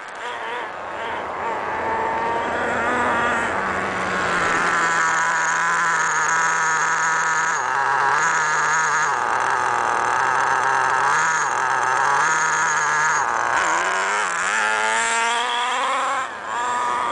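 HPI MT2 nitro RC monster truck's small two-stroke glow engine screaming at high revs, its pitch stepping up and down with the throttle. Near the end it rises as the truck speeds back toward and past.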